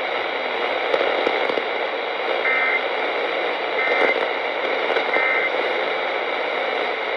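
Steady radio static hiss from a weather radio broadcast. Midway it is broken by three short, identical two-tone data bursts about a second apart: the EAS/SAME digital end-of-message code that closes a broadcast warning.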